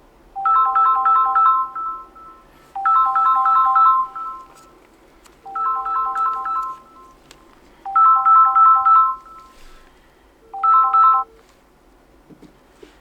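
Samsung Galaxy Z Flip5 ringing with its default ringtone for an incoming call: a short melodic phrase of quick notes, repeated five times about every two and a half seconds. A few faint taps near the end.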